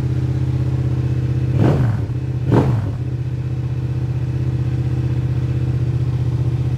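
Yamaha R7's 689 cc parallel-twin engine idling steadily, blipped twice on the throttle in quick succession, about one and a half and two and a half seconds in. This is the first start after fresh spark plugs are fitted.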